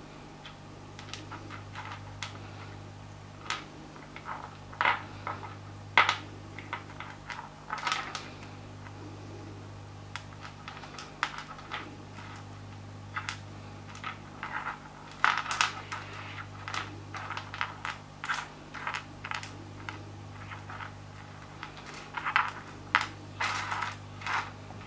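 Pieces of Lightning Ridge rough opal clicking and tapping against each other and the surface as fingers move them about, in irregular single taps and quick clusters. A steady low hum runs underneath.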